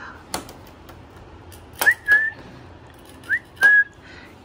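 A person whistling twice to call a dog: each whistle a quick upward slide followed by a short held note. A single click comes just before the first whistle.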